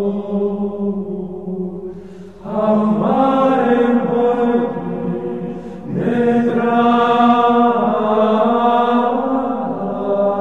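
Background music of slow vocal chant, long held notes with several voices sounding together; a new phrase swells in about two and a half seconds in and another about six seconds in.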